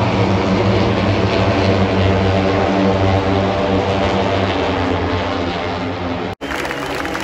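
Propeller aircraft flying over, its engine a steady drone. The sound cuts off abruptly near the end.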